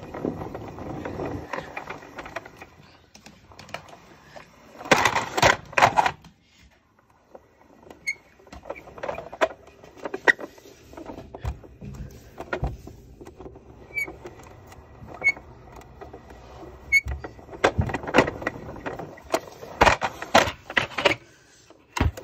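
Plastic toy vehicle rattling and clattering as it moves along, with irregular clicks and knocks from the loose iPod and plastic parts. The clattering is busiest twice, a few seconds in and near the end.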